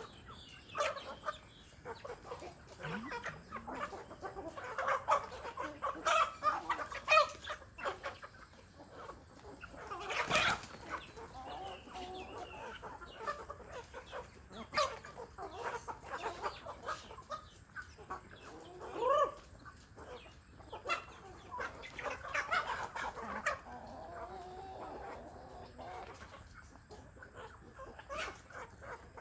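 Chickens clucking on and off, with scattered short sharp clicks.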